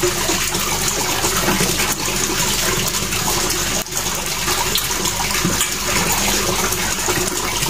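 Loud, steady rush of running water, unbroken throughout.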